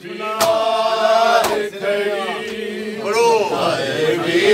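Male voices chanting a mournful lament (noha) in a hall, with two sharp hand slaps on bare chests about a second apart in the first half, the rhythmic beat of matam.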